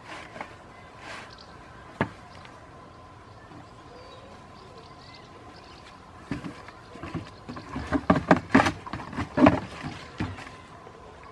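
Goat kids nosing and shoving an empty cardboard box: a single sharp knock about two seconds in, then a run of cardboard thumps and scrapes in the second half, loudest near the end.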